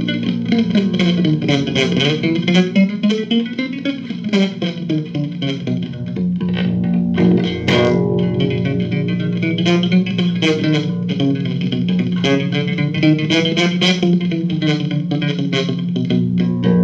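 Guitar music played through effects: plucked notes over a steady low bass drone, with sweeping tones that rise and fall.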